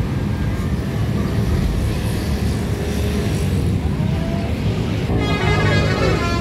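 Road traffic: a steady low rumble of vehicle engines, with a loud, drawn-out pitched sound starting about five seconds in.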